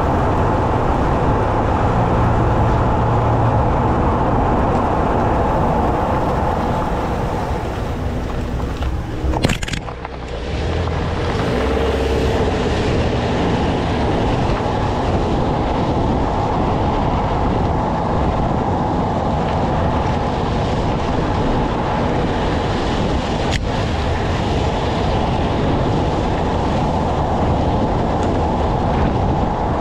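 Steady rolling road noise and wind rush on a GoPro carried low over the pavement, with a sharp click and a brief drop in level about ten seconds in.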